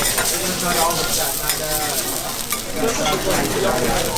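Fish fillets sizzling on a hot teppanyaki griddle, with steel spatulas scraping and clinking on the plate as the fillets are laid down and pressed.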